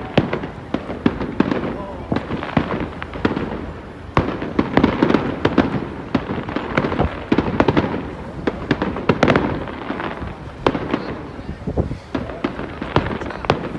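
Fireworks display: a rapid, irregular barrage of bangs and crackling shell bursts, densest and loudest in the middle.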